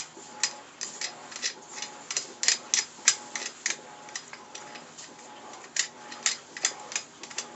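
A string of sharp light clicks and taps, about three a second, from the metal parts of a homemade angle-iron drill press vise jig being handled and adjusted.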